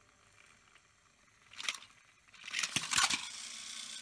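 Battery-powered plastic toy trains on plastic track, clicking and rattling. There is a short rattle about one and a half seconds in, a louder burst of clattering near three seconds, then a steady motor whir.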